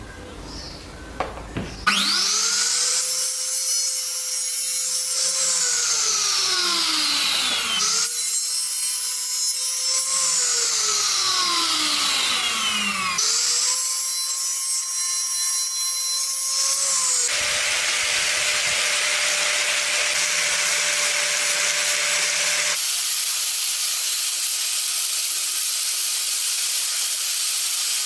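Small electric power tool working wood: its motor spins up, runs and winds down in falling pitch three times, then runs steadily.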